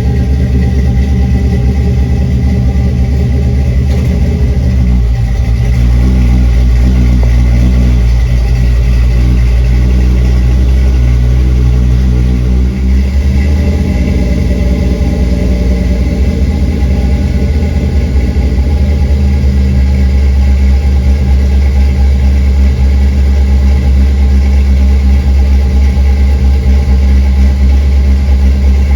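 A Chevrolet C10 truck's 383 V8 engine running steadily, its pitch shifting about 6 seconds in and again about 13 seconds in.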